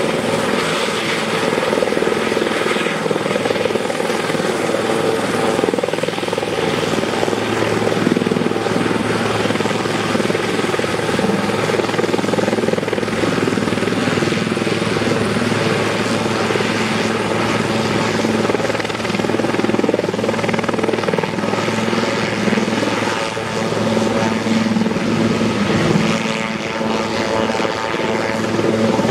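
Sikorsky S-76A twin-engine helicopter running on the ground with its rotors turning, a loud steady sound that holds level throughout as it taxis.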